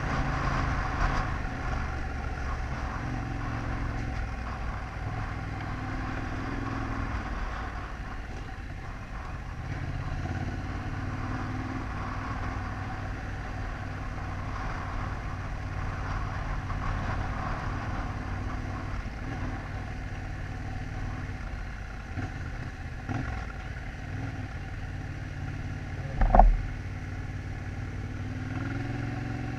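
Adventure motorcycle's engine running at low, steady speed along a rough gravel track, with tyre and wind noise; the engine note eases and picks up a few times. A brief loud thump comes near the end.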